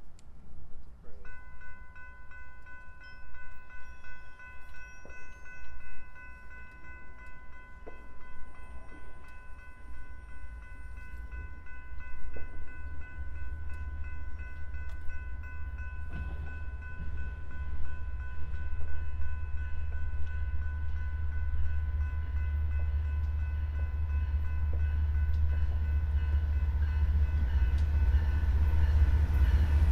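A grade crossing warning bell starts about a second in and rings steadily. Under it, the low rumble of an approaching train grows louder.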